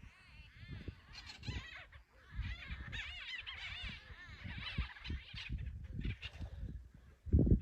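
Several birds chirping and twittering together in quick, overlapping arched notes, with low knocks underneath and one loud low thump near the end.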